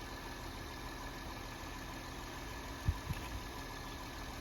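An engine idling steadily, with two short low thumps about three seconds in.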